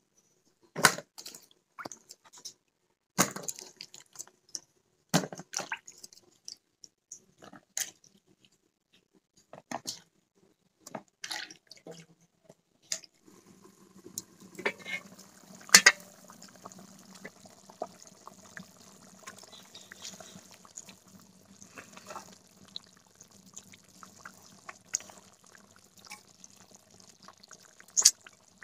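Cut bottle gourd pieces being washed by hand in a metal bowl of water, heard as scattered splashes and clunks. About halfway through this gives way to a steady low hum with occasional clicks from a curry cooking in an iron kadai.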